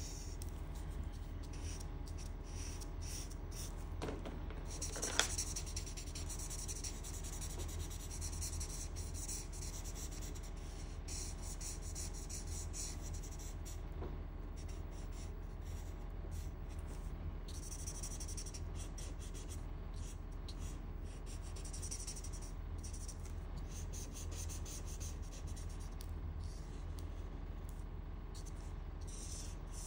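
Broad-nib marker strokes scratching and rubbing across paper as grey shading is laid in, in repeated runs with short pauses between them, over a steady low hum. A single sharp tap about five seconds in.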